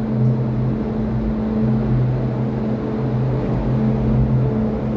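Steady low hum and rumble inside a moving cable-car gondola cabin, holding one constant pitch.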